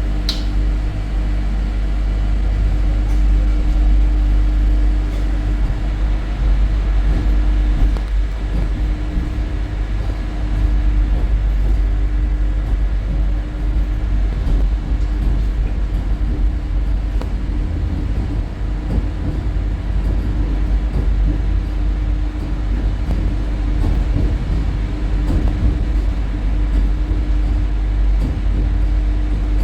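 Vande Bharat Express electric train set running, a steady rumble with a constant hum, and a brief high squeak just after the start.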